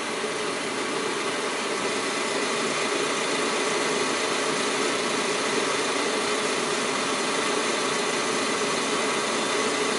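A steady engine-like drone that does not change, with no separate tool clicks standing out.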